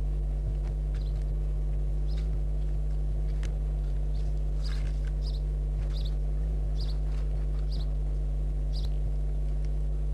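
A steady low electrical hum runs throughout. Short high-pitched chirps come over it irregularly, about one or two a second.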